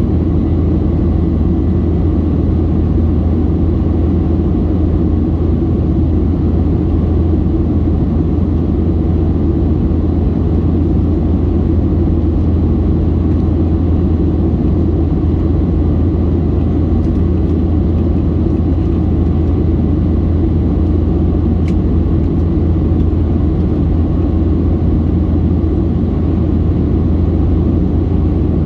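Steady cabin noise of a Boeing 737-700 in flight, heard from a window seat over the wing: its CFM56-7B turbofan engines and the airflow make an even, low drone.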